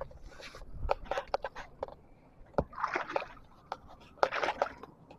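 Water sloshing and splashing in irregular surges as a person wades through deep river water.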